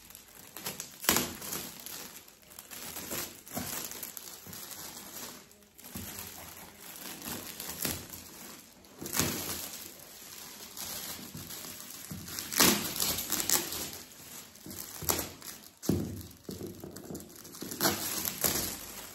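Metallic foil gift wrap being crinkled and pulled off a cardboard parcel by hand, an irregular crackling rustle with several sudden loud bursts.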